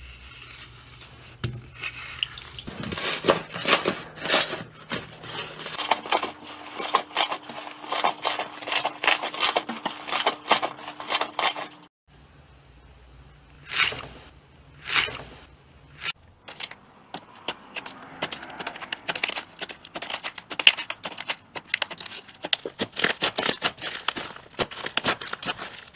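Hands squeezing, folding and stretching slime: a dense run of sticky clicks, crackles and squelches that breaks off briefly about halfway through, then starts again.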